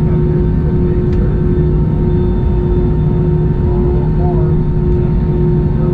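Steady drone inside the cabin of an Airbus A321 airliner, with two steady hum tones over a low rumble. A voice is faintly heard about two-thirds of the way through.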